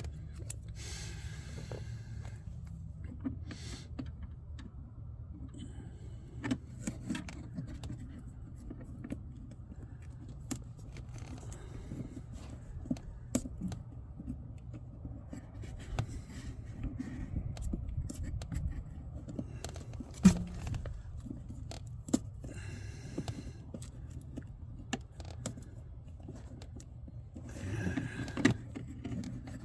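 Hand work on car interior parts: scattered scrapes, clicks and light knocks as a tweeter speaker is worked into its kick-panel mount, with one sharper knock about twenty seconds in, over a steady low hum.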